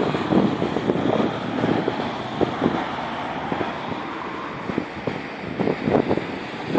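Road traffic with cars idling and moving past, with wind buffeting the microphone in gusts.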